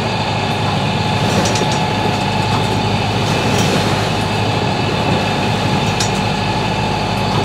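Steady noise of a Westsail 42 sailboat under way in a rough, windy sea: wind and water rushing past, with a low steady hum underneath and a few faint ticks.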